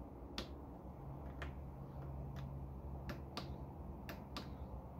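Faint sharp clicks of a torque wrench tightening the banjo bolt on a motorcycle's front brake master cylinder, about one click a second, some in quick pairs.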